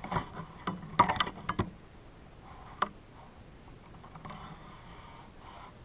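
Handling noise: a quick run of light clicks and rustles in the first couple of seconds, one more click near three seconds in, then only faint rustling.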